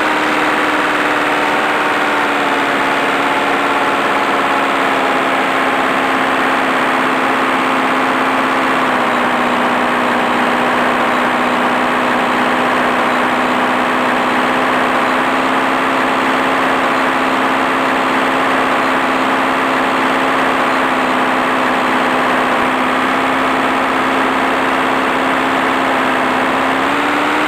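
Boeing Stearman biplane's radial engine running steadily at a constant loudness. Its pitch settles a little lower about a third of the way through and climbs again near the end.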